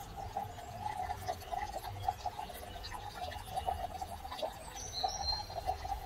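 Outdoor garden wildlife: a continuous fast chirring call runs throughout, and a bird gives a couple of brief high chirps about five seconds in.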